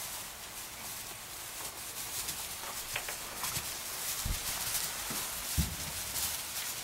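Young lambs scampering and leaping on straw bedding: light hoof patter and straw rustling, with two dull thumps in the second half, the later one the loudest.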